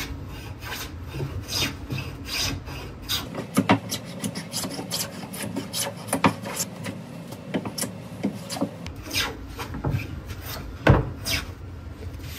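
No. 5½ hand plane taking shavings off the face of a solid birch stair tread in many short strokes in quick succession, a few of them louder, to flatten a curl at the end of the board.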